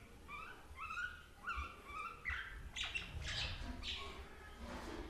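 Common myna calling: a run of short rising whistled notes, about two or three a second, then a few harsher squawking notes from about three seconds in.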